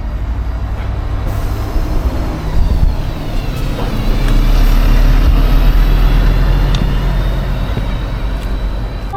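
Road traffic close by: a large vehicle such as a bus or truck runs past with a heavy engine rumble, loudest a little past the middle.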